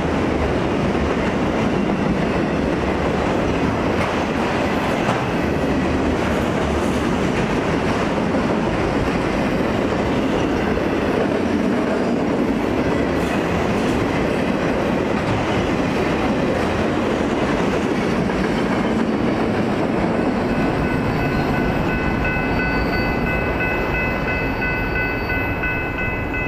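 Freight train of autorack cars rolling past a grade crossing, a steady rumble of wheels on the rails. Near the end, as the train passes, a steady high ringing from the crossing's warning bell comes through over it.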